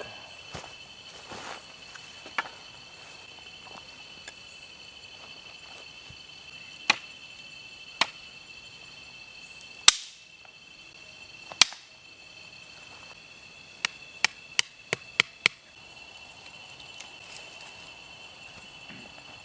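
Dry firewood being broken up for a campfire: sharp single cracks a few seconds apart, then five in quick succession near the end. A steady, high-pitched night insect chorus runs underneath.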